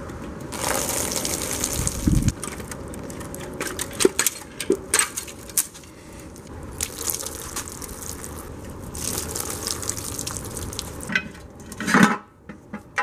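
Metal parts of a Honda J-series V6 being handled during its teardown: scattered clanks, knocks and clicks as the cylinder head is lifted off and the engine is turned on its stand, over a steady rushing noise. There is a heavier thump about two seconds in and a loud knock near the end.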